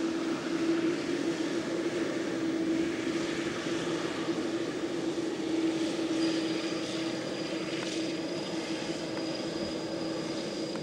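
Jet airliner engines running, a steady drone with a constant low hum; a thin, high whine joins about six seconds in and holds steady.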